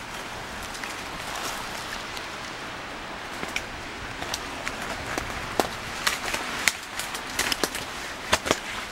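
Steady outdoor hiss. From about five seconds in comes a run of sharp, irregular snaps and clicks, more frequent near the end.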